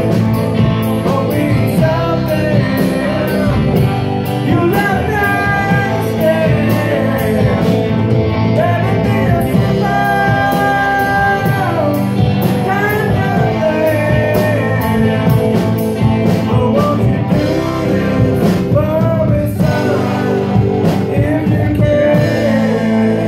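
Live rock band playing: a voice singing over electric guitar and bass guitar, with a steady beat and long held notes.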